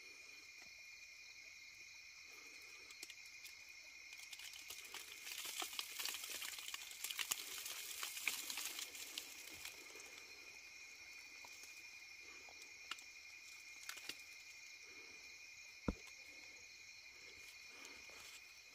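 Night insects trilling steadily on a high pitch, with dry leaves and twigs crackling and rustling from about four to nine seconds in as hands work through the leaf litter. A single sharp snap near the end.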